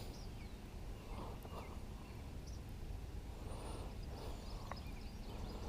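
Quiet outdoor ambience on open water: a low, steady wind rumble on the microphone, with a faint high chirp midway and a single small click near the end.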